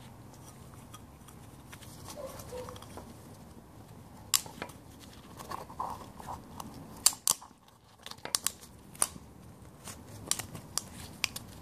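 Quiet handling noise with scattered sharp clicks and ticks as a new oiled rubber O-ring is worked onto an oil filter cap by hand. The clicks come thicker in the second half.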